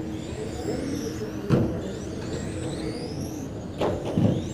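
Electric RC touring cars running on the track, their brushless motors whining and gliding up and down in pitch as they accelerate and brake. Two sharp knocks come about a second and a half and about four seconds in.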